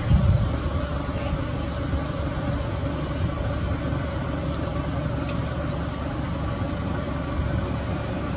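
Steady low rumble and hiss of outdoor background noise, with a brief louder low thump just after the start.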